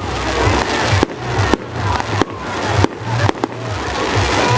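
Fireworks display: aerial shells bursting in quick succession, about two sharp bangs a second, over continuous crackling.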